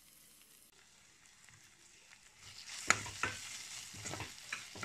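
Spoon stirring turmeric into frying onion-tomato masala in a pressure cooker pot, scraping and clinking against the pot's metal side. The first couple of seconds hold only a faint sizzle; the stirring clatter starts about halfway in, with one sharp clink just after.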